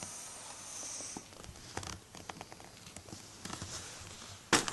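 Close rustling and scattered small clicks as a Burmese python works at a rabbit on bark bedding, with a hissy noise in the first second and one loud knock near the end.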